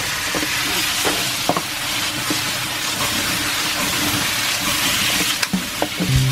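Pork pieces sizzling steadily in a reducing soy-sauce glaze in a nonstick pan over a gas flame, with a few light knocks as the pan is tossed.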